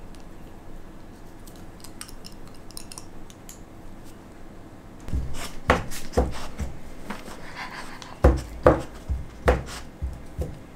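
Golden retriever nosing and mouthing at a closed fist that hides a dog biscuit: a few faint clicks, then from about five seconds in a run of sharp knocks and snuffling bumps against the hand and bedding.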